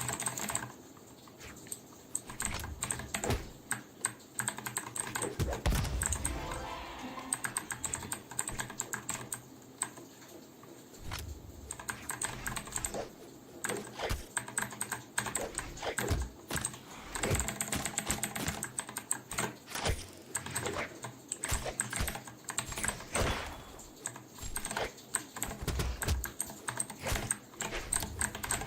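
Typing on a Vortexseries VX8 mechanical keyboard with stock blue switches: a fast, irregular run of clicky keystrokes with occasional heavier thocks.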